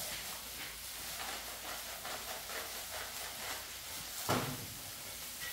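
Food sizzling on a Blackstone flat-top griddle, a steady frying hiss from eggs in butter, rice and chicken. One short knock about four seconds in.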